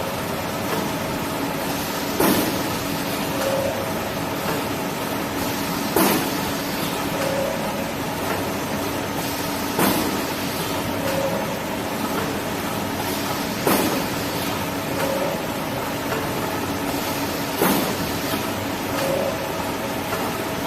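Automatic band saw cutting machine for tissue paper rolls running steadily with a continuous hum. A sharp clack comes about every four seconds as it works through its cycle, each followed a little later by a short tone.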